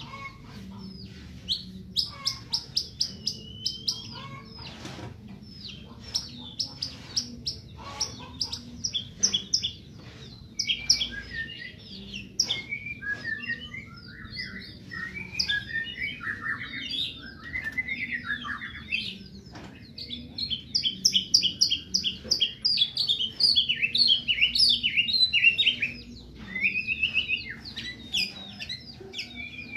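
White-rumped shama (murai batu) singing a long, varied song: clear whistles mixed with quick runs of rapidly repeated notes, busiest near the start and again past the middle.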